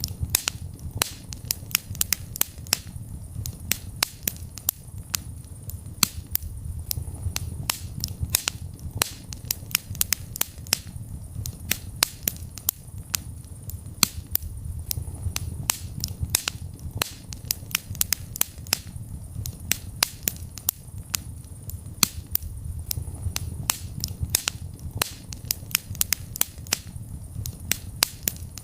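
Wood fire burning in a fireplace, with frequent irregular sharp crackles and pops over a steady low rumble of the flames.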